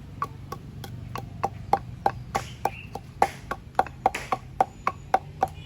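Pestle pounding roasted whole spices in a mortar to grind them into pilau masala, in steady knocks about three or four a second.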